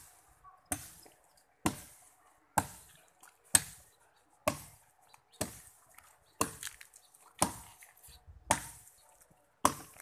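A small axe chopping into a thin eucalyptus trunk: sharp, even strokes about once a second, about ten in all, each a crisp knock of blade into green wood.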